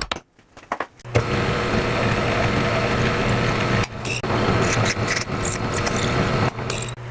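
Electric shop power tool running, a loud dense noise over a steady low hum, dropping out briefly about four seconds in.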